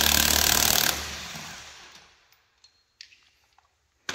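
Cordless impact wrench hammering on a 19 mm lug nut, stopping about a second in and winding down. A few light clicks follow, then a sharp metallic clank near the end.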